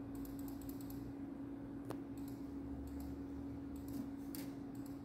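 Computer mouse clicking: a quick run of clicks, then single sharp clicks and short runs, over a steady low hum.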